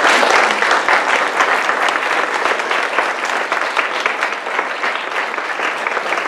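Audience applauding in a lecture hall: many people clapping at once, loudest at the start and easing slightly.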